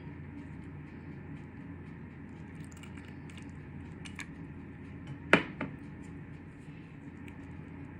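Ingredients being handled over a plastic food container: a few faint clicks, then a sharp knock about five seconds in with a smaller one just after, over a steady low hum.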